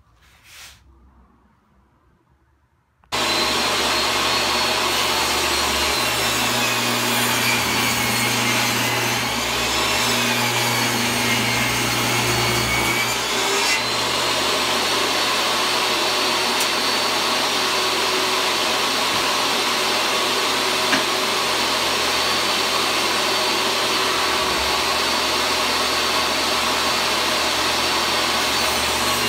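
Table saw running and cutting through a wooden panel: a loud, steady whine that starts abruptly about three seconds in, its pitch sagging a couple of times as the blade takes the load.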